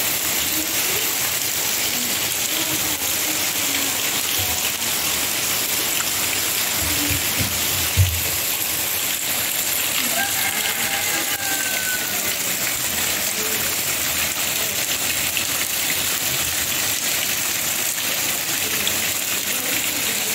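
Steady rain shower falling on roofs, walls and open plastic water drums, a constant hiss of drops. A single dull thump sounds about eight seconds in.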